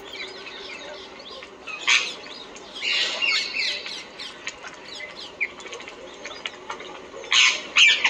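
Birds chattering and squawking in harsh overlapping bursts of calls, loudest about two seconds in, around three seconds, and again near the end.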